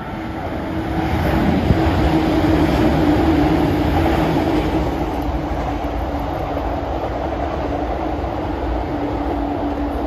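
Yokosuka Line electric commuter train running past below on the tracks. Its rumble and wheel noise build over the first few seconds and then hold steady.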